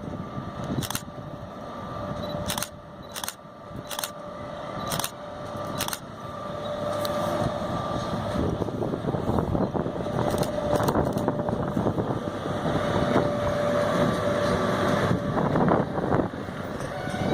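VR Sr1 electric locomotive pulling a freight train away: a steady electric whine, with a series of sharp clanks over the first six seconds, then a rolling rumble and clatter that grows louder as the train gets moving.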